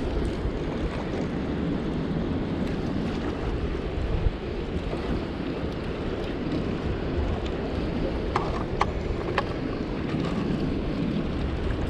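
Strong wind buffeting the microphone over choppy water slapping against a small boat's hull, with a few sharp clicks about two-thirds of the way through.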